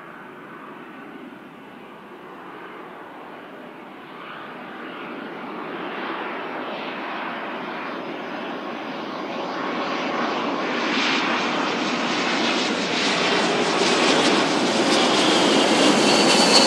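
Embraer KC-390's two IAE V2500 turbofan engines on landing approach, gear down: a jet rumble growing steadily louder as the aircraft draws near, with a high fan whine coming in near the end.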